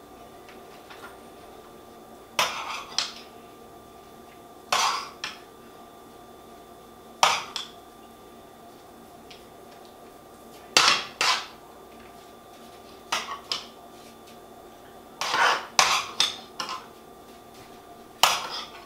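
A metal serving spoon clinking and scraping against a skillet in short clusters about every two to three seconds as cooked chicken pieces are scooped out.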